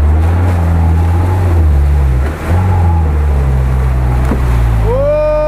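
UAZ-469 engine revving hard under load as the vehicle pushes through a muddy creek, with water splashing. The engine note drops briefly about two seconds in, then picks up again. Near the end a person lets out a long shout.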